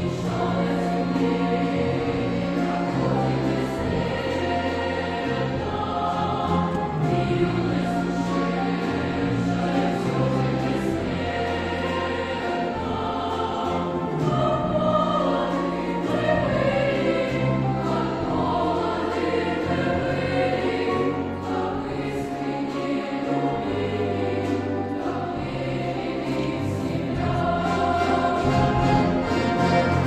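Large children's choir singing in unison and harmony, accompanied by an orchestra of Russian folk instruments; the music swells somewhat louder near the end.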